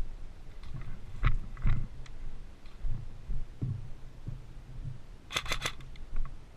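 A rapid burst of about five shots from an airsoft gun near the end, over low thuds and a few sharp clicks.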